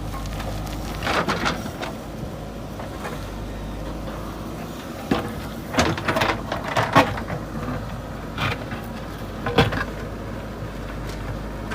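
JCB 3DX backhoe loader's diesel engine running steadily under load, with bursts of scraping and metal clanks as the bucket cuts into soil, loudest a little past halfway.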